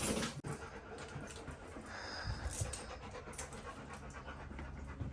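A dog panting steadily, close by.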